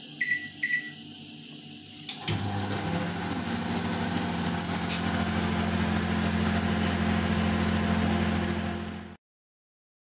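Two short keypad beeps from a Dawlance microwave oven, then a click about two seconds in as it starts heating, followed by the steady hum of the oven running. The sound cuts off abruptly near the end.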